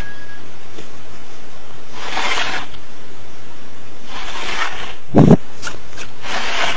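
A cat hissing in short bursts about every two seconds, with a single thump about five seconds in.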